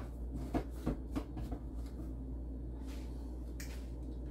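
Soaked soybeans dropping into a plastic NutriBullet blender cup, a few light clicks in the first second and a half, over a low steady hum.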